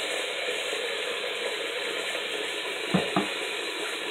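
Steady background hiss, with two short sounds close together about three seconds in.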